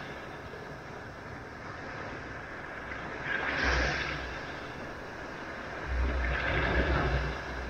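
Sea waves breaking and washing up a sandy beach, with a steady surf wash and two louder surges of breaking surf about three and a half and six seconds in.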